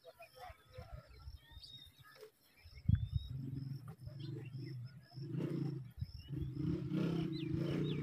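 A low, steady droning hum comes in about three seconds in and holds. Under it run faint, short high chirps and a quick ticking about twice a second.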